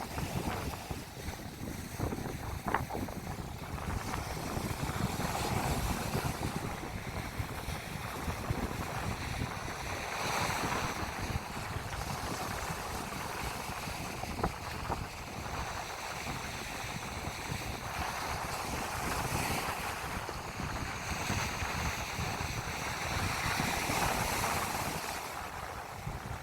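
Sea waves breaking and washing up the beach, swelling about every four to five seconds, with wind buffeting the microphone as a low rumble.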